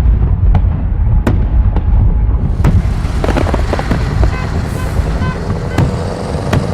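Fireworks going off: a deep rumble of booms with sharp bangs at irregular intervals, and a hiss joining in a little over two and a half seconds in.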